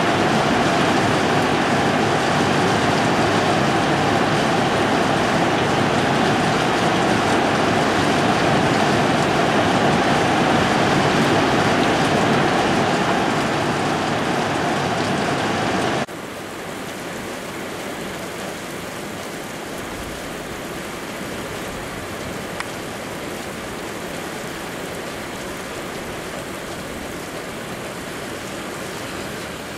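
Heavy rain pouring down in a storm, a steady hiss that drops suddenly to a quieter rain noise about halfway through.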